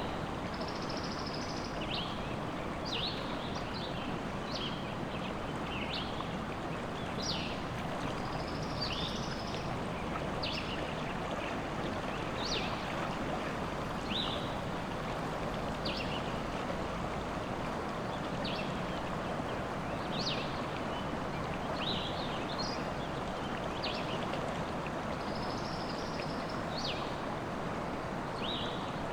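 A river flowing steadily, with songbirds chirping over it: short, quick chirps every second or two and a few brief trills.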